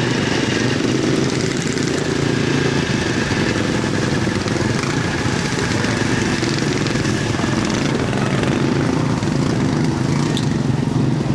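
Small racing engines running steadily, their pitch holding level with no revving.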